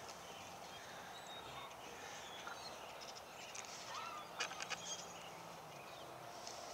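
Faint outdoor ambience, with a short call and a quick run of sharp clicks about four to five seconds in.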